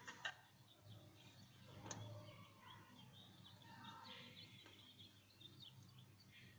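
Near silence, with faint, scattered short chirps and a light click about two seconds in.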